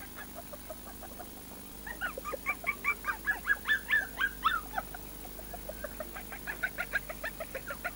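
A litter of puppies yipping and squealing, several short high calls a second, loudest from about two to five seconds in, with fainter yips around them.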